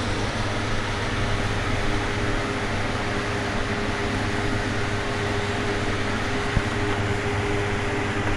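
Steady hum and hiss of a running fan-type machine, even throughout, with one small click about six and a half seconds in.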